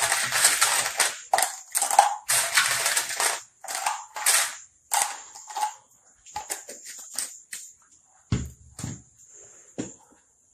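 Pebbles being poured into a bottle, clattering thickly for the first three seconds or so, then dropping in by ones and twos. A couple of dull knocks about eight seconds in.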